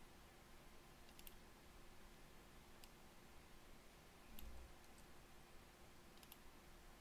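Faint computer mouse clicks, a few single clicks and quick double-clicks spread through an otherwise near-silent room tone, with a soft low thump a little past four seconds in.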